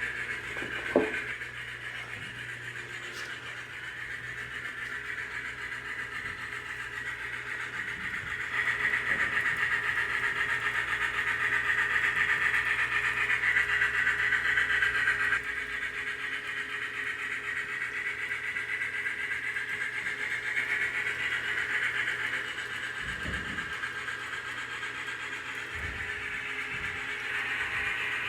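DCC sound decoder in an HO-scale Athearn Union Pacific Challenger model steam locomotive, playing its running steam sounds through the model's small speaker as the train runs. The sound is a steady hiss that grows louder for several seconds in the middle, with one sharp click about a second in.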